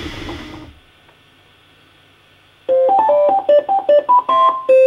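3D printer's motors and fan running, then stopping within the first second. About two seconds later the Bambu Lab A1 3D printer's stepper motors play a short tune of about ten quick notes, rising and falling.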